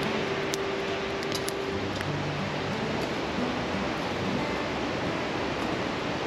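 Steady rush of a river pouring over a weir, with a few faint clicks in the first couple of seconds.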